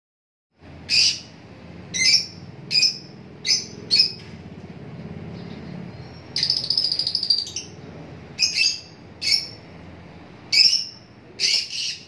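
Lutino peach-faced lovebirds calling in short, sharp, shrill chirps, spaced about a second apart, with a longer burst of rapid chattering about six seconds in.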